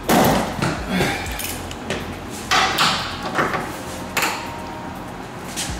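Metal tools and parts clanking and rattling against metal in a series of sharp knocks, loudest right at the start and about two and a half seconds in.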